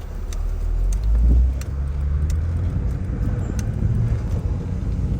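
Acura TL Type S driving slowly: a steady low engine and road rumble that swells briefly about a second in. The engine has a misfire in cylinder 6.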